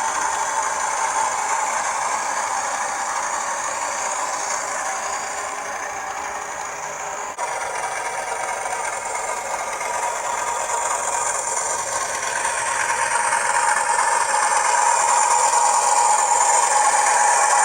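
Bachmann Class 40 model diesel locomotive running on the layout, its TTS sound decoder playing the engine sound through the small standard 8-ohm speaker, thin and lacking deep bass, along with the rattle of wheels on the track. It grows louder over the last few seconds, with a single sharp click about halfway through.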